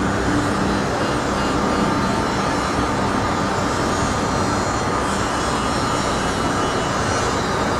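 A steady engine drone with a faint hum at a few fixed pitches, over even outdoor street noise.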